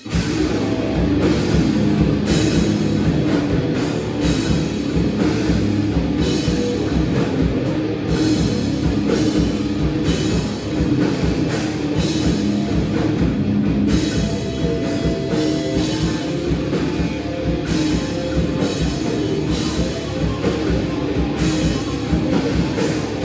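Metal band playing live at full volume: distorted guitars, bass and a drum kit come in all at once and play on without a break.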